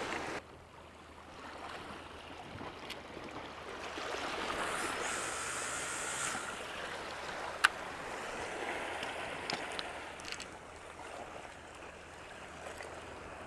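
Sea surf washing, swelling louder for a few seconds in the middle, with one sharp click about seven and a half seconds in.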